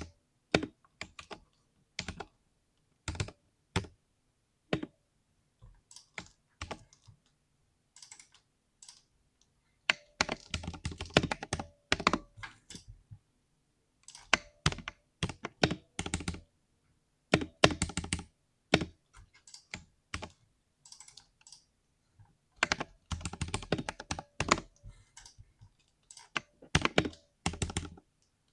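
Typing on a 60% mechanical keyboard tuned for a deep, thocky keystroke sound. Scattered single key presses at first, then several bursts of fast typing separated by short pauses.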